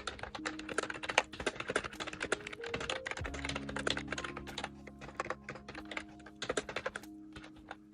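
Typing on an Ajazz Bluetooth tablet keyboard: a fast, irregular run of key clicks.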